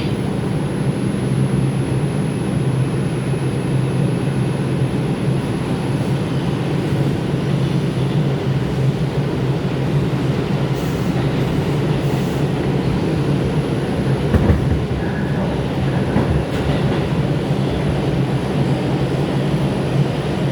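R142 subway car running between stations, heard from inside the car: a steady rumble of wheels on rail over a low hum, with a few brief knocks about two-thirds of the way through.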